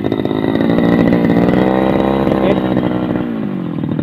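Two-stroke brush cutter engine running at high revs as its blade sweeps through tall grass; the revs dip about three seconds in.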